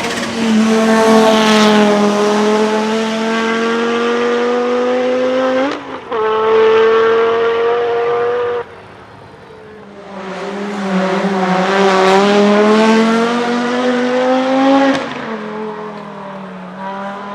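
Audi Quattro S1 E2's turbocharged 2.1-litre inline-five engine driven hard under load, its pitch climbing slowly, with a short break about six seconds in like a gear change. It goes off-throttle near nine seconds in, then builds up again from about ten seconds and drops away near fifteen.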